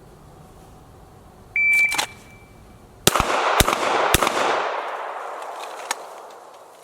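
Shot timer beeps once, then a handgun fires three rapid shots about half a second apart, a draw and two-to-the-chest, one-to-the-head string finished in 2.59 seconds. A long echo trails off after the last shot.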